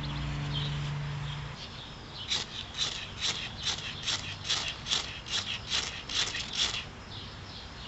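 An Opinel No 9 carbon-steel blade drawn in quick, repeated strokes: about a dozen short, sharp scrapes at roughly three a second, which then stop.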